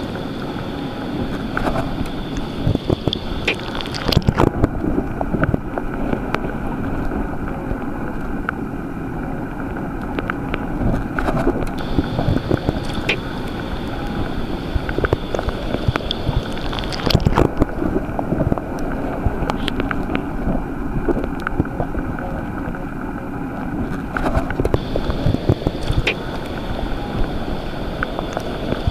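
Underwater ambience: a steady low rumble and hiss, dotted with scattered crackling clicks, with a thin high tone that fades in and out three times.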